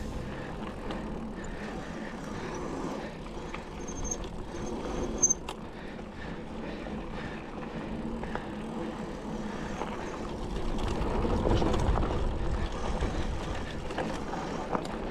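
Mountain bike riding down a dirt trail: a steady rush of tyre and trail noise that swells with a low rumble about eleven seconds in. About four to five seconds in there is a brief high squeal and a sharp knock.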